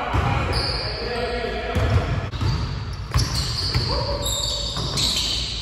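Basketball bouncing on a court: several dull thumps at uneven intervals, with voices in the background.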